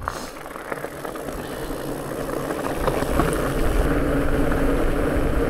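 Fat bike setting off along a track, with rumbling tyre and wind noise building steadily louder and a steady hum joining about four seconds in.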